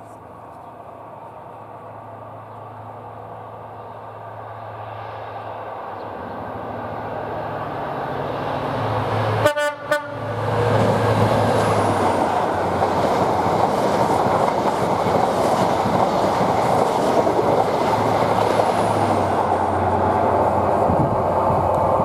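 A train approaching and passing close by: a rumble that grows steadily louder for about ten seconds, a brief break in the sound about halfway, then a loud, steady rush of wheels and engine on the rails.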